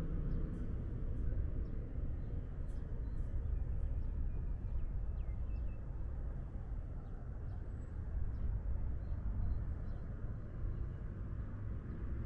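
Outdoor street ambience: a steady low rumble of traffic, with a few faint bird chirps and light high clicks.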